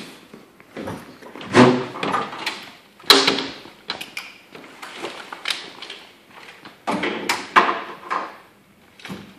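Firefighter's gear being handled: an SCBA air pack swung on over the head and strapped up, with irregular clanks, knocks and rustling of turnout gear, and steps on the bay floor. About eight sharp knocks, spread unevenly.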